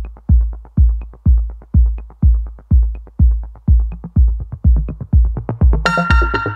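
Electronic dance music with a heavy kick drum about twice a second and quicker hi-hat ticks between the beats. Near the end a bright synth chord and a cymbal crash come in.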